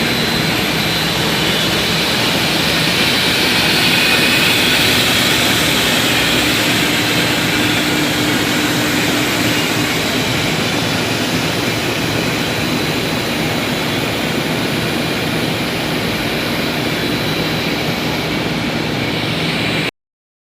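Rebar induction heat-treatment line running: a loud, steady machine noise with a faint high whine that cuts off suddenly near the end.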